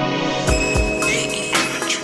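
Slowed, reverb-soaked hip-hop instrumental: a sustained synth pad, then the drums come in about half a second in with deep bass kicks and crisp hits as the muffled intro opens up to full brightness.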